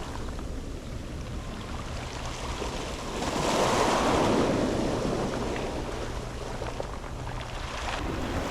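Sea waves washing onto a pebble beach. A wave surges in a little after three seconds, loudest around four seconds, then slowly ebbs, and another begins to build near the end.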